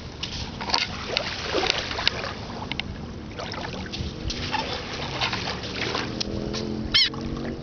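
Small lake waves lapping on a sand-and-pebble shoreline, with wind buffeting the microphone and scattered light clicks. A low steady hum comes in over the last couple of seconds, and a short high chirp sounds near the end.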